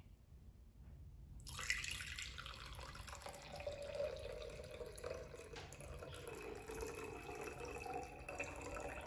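Water pouring from a glass pitcher into another glass pitcher, a steady stream splashing into the glass that starts about a second and a half in.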